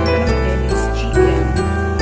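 Background music with a steady bass line and sustained melody notes.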